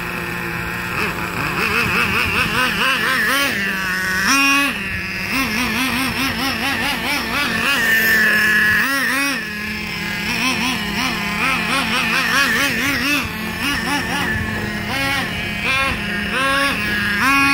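Nitro RC monster truck's small glow engine running and being throttled in repeated short revs, its pitch climbing and falling again and again as the truck drives, while the engine is being broken in.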